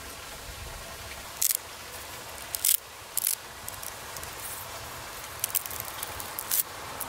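A thin green stick split lengthwise by hand: its fibres tear in short, sharp, crackling rips, about six of them, over a steady low hiss.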